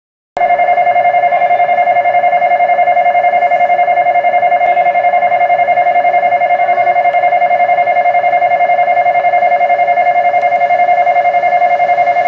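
Station platform's train-approach warning bell ringing continuously with a fast, even trill, cutting in abruptly just after the start: the signal that a train is approaching the platform.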